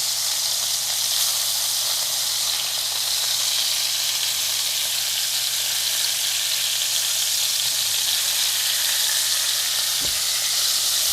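Ground-beef patties sizzling steadily in a hot pan as their second side sears, with one light tap about ten seconds in.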